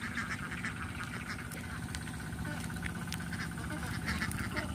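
A large flock of laying ducks quacking and chattering steadily, many overlapping calls.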